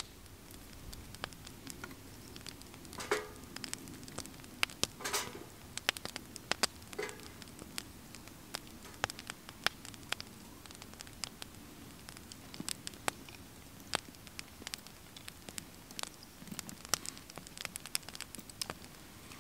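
Wood fire crackling in a small wood-burning camp stove, the BondStove Mini, with irregular sharp snaps and pops throughout and a few louder ones in the first seven seconds.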